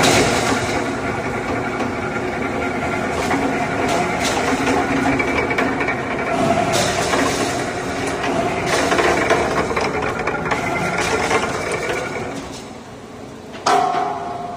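A four-foot log debarking machine running, stripping bark from a log with a dense, uneven mechanical clatter and rumble. The din dies down near the end, and then a sudden loud knock rings briefly.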